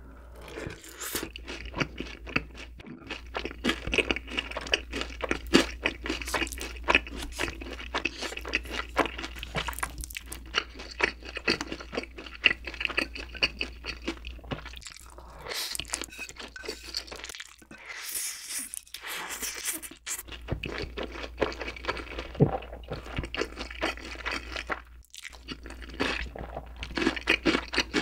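Close-miked eating: crunchy chewing of sauced fried chicken in many quick, irregular crackles, then black-bean-sauce instant noodles (Chapagetti) slurped and chewed in the middle.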